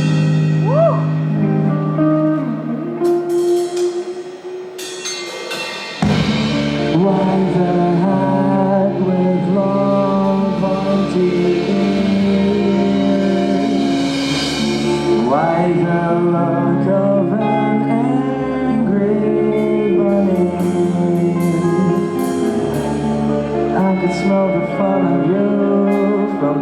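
Live band playing. A guitar part carries the first few seconds, then about six seconds in bass and drums come in and the full band plays on.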